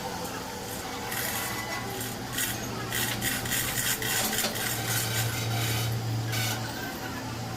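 Irregular rasping, scraping strokes of a tool working a part, over a steady low hum that grows louder in the middle and drops away near the end.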